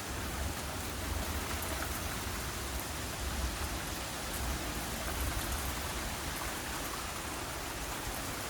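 Thunderstorm rain pouring steadily, with a low, unsteady rumble underneath.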